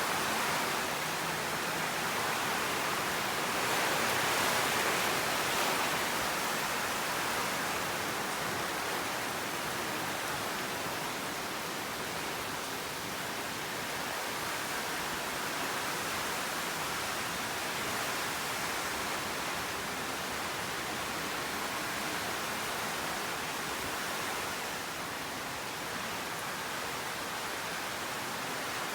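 Steady rush of heavy rain from a tropical storm, swelling slightly a few seconds in.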